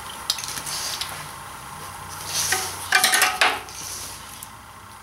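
Metal fittings of a compressor air hose and inflator gauge clinking and rattling as they are picked up and handled, with a few light clicks early and a busier clatter of clicks and scrapes between two and three and a half seconds in.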